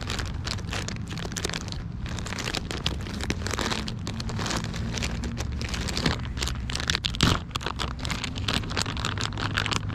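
Hands rummaging in a tackle bag and crinkling a plastic soft-bait package: a dense, irregular run of rustles and crackles over a steady low rumble.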